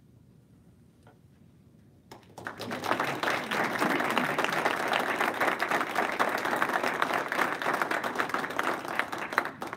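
Applause from a small group of people clapping: after about two seconds of quiet it starts suddenly, goes on for about seven seconds, and stops just before the end.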